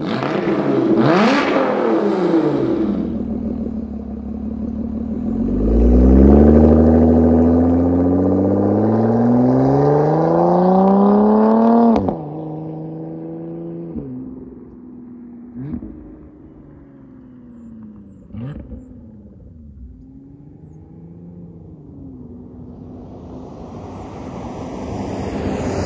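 Lotus Evora 400's supercharged 3.5-litre V6 (Toyota 2GR-FE) on a decat exhaust pipe: a pass-by with falling pitch, then a long pull with revs climbing for about six seconds before the sound cuts off abruptly. Next come several short rev blips on downshifts, and near the end the car comes closer, getting louder.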